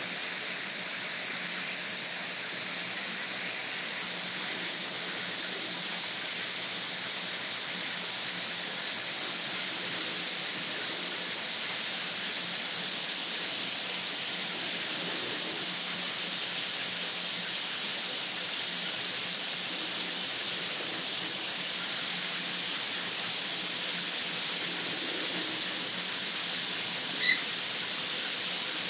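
Shower head spraying water steadily, a continuous hiss of falling spray on tile. Near the end, a single short, high chirp.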